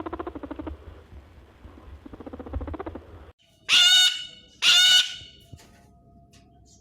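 Two loud animal calls, each about half a second long and about a second apart, near the middle. They follow a softer, rapid pulsing animal sound that fades out in the first second.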